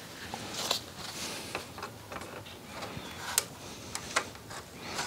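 Scattered small clicks, taps and short scrapes of gloved hands and a tool working on a newly fitted Weber carburetor and its rubber hoses, with a sharper click a little past three seconds in and another about four seconds in.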